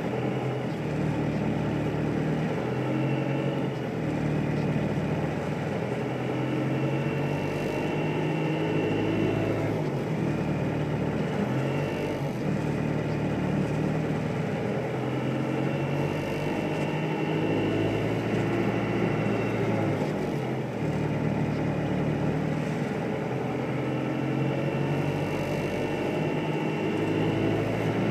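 A steady, engine-like mechanical drone made of several low tones that step up and down in pitch every few seconds, with a fainter high hum above.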